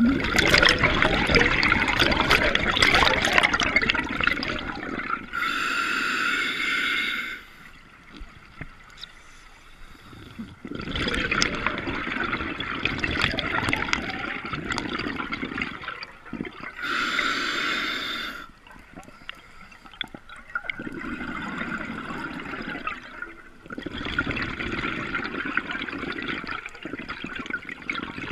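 Scuba diver breathing through a regulator underwater: long bubbling exhalations, each followed by a shorter hissing inhalation, in a slow cycle of about two and a half breaths.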